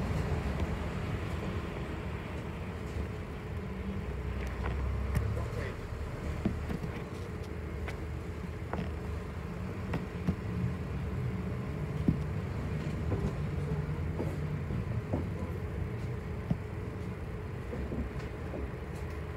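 City bus heard from inside the cabin while riding: a steady low engine and road rumble, with a few faint steady whining tones and scattered short rattles and clicks.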